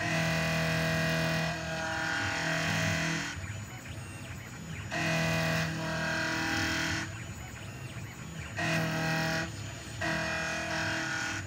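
Tabletop CNC machine's stepper motors whining through a series of moves. Each move is a steady tone lasting a second or two, starting and stopping abruptly and changing pitch from one move to the next, with quieter running in between.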